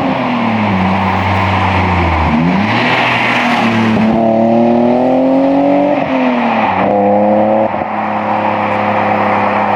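BMW E30's swapped-in M52B28 straight-six with a custom exhaust, driven on the road: revs falling off, then climbing steadily under acceleration, with two quick upshifts about six and seven seconds in, after which it settles to a steady cruise.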